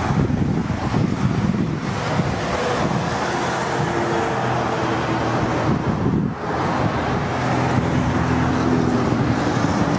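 Canadair CL-415 water bomber flying past, its two turboprop engines and propellers giving a continuous hum with a few steady low tones. Heavy wind noise on the microphone runs through it.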